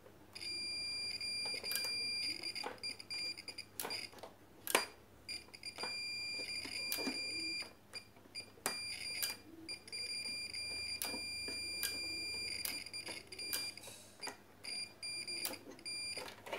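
Multimeter continuity beeper sounding a steady high beep that comes and goes in stretches, from a fraction of a second to a few seconds, as the probes make and break contact across the blender's switch contacts. The beep signals a closed circuit. Light clicks of the probes touching are heard between the beeps.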